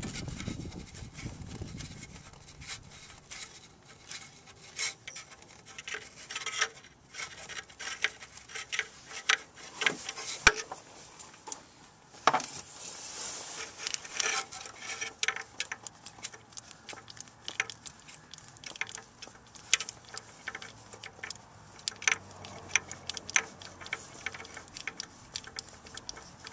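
Irregular light clicks and clinks of a socket extension and small metal parts being handled at an engine's spark plug well, with one sharper knock about ten seconds in.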